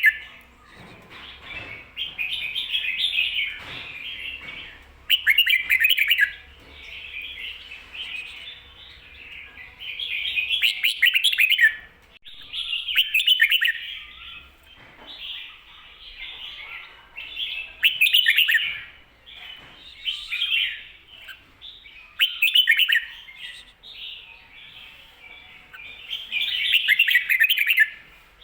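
Red-whiskered bulbul singing the doubled 'ko-ta-ra' song that Thai keepers call 'berl': loud, quick warbled phrases every few seconds, with softer twittering in between.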